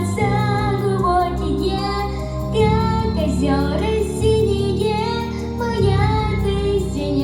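A young girl singing a pop song solo, holding long notes over a backing track.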